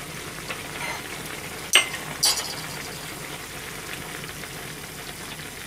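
Kelp nishime simmering steadily in a shallow pan, its liquid reducing down. Two sharp clicks, half a second apart, come near the two-second mark.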